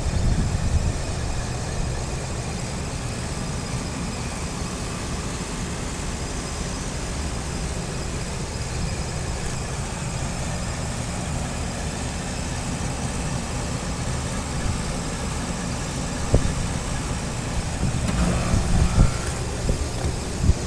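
Machinery running steadily with a low rumbling hum, with one sharp click about sixteen seconds in.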